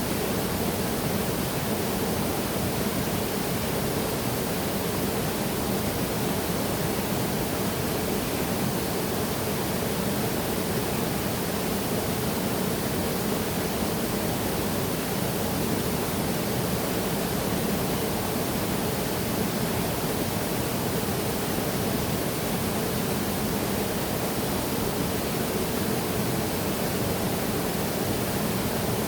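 Waterfall: a steady rush of falling water, even and unbroken, with no other sounds.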